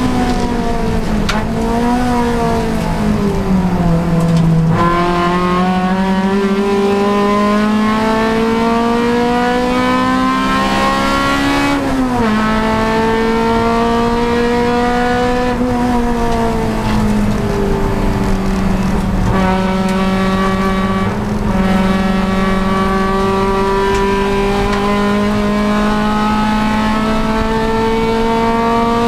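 A Honda Civic Si race car's four-cylinder engine under racing load. The revs fall over the first few seconds, climb steadily for about seven seconds, drop sharply at a gear change about twelve seconds in, then climb slowly with a brief dip near nineteen seconds.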